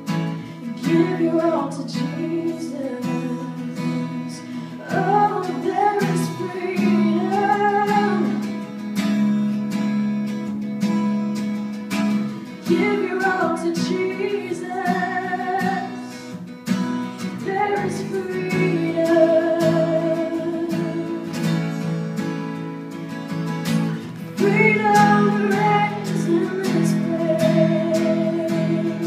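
A woman singing into a microphone with strummed acoustic guitar accompaniment, in phrases that end on long held notes.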